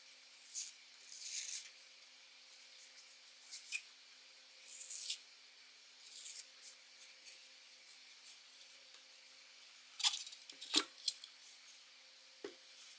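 Adhesive tape being peeled off a speaker's non-woven fabric dust wrap and the fabric rustling as it is pulled open, in short scratchy bursts. A few light knocks come near the end.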